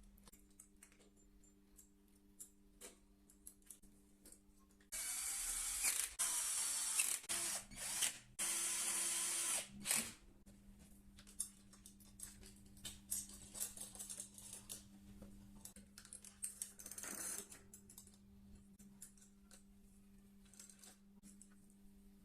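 Small clicks and taps of parts being handled over a steady electrical hum. About five seconds in, a tool runs in several bursts of a second or two each for about five seconds, then runs briefly again near 17 s.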